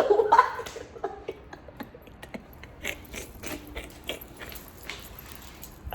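Gum chewing close to the microphone: a string of irregular, wet smacking clicks from the mouth.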